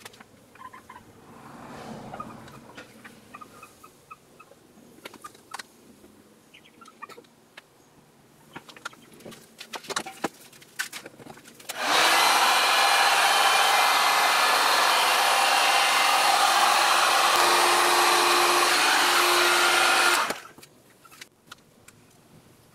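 Handheld hot-air blower running steadily for about eight seconds: a loud, even rush of air with a low hum, switched on about halfway through and cut off suddenly. It is the kind of blower used to push white epoxy into lacing for an ocean-wave resin pour. Before it come a few light taps and clicks.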